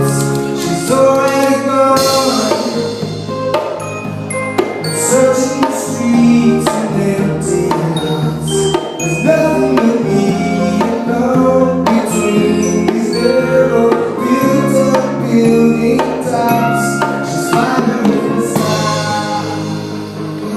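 Music: a song with singing over percussion, including drums and mallet percussion such as marimba.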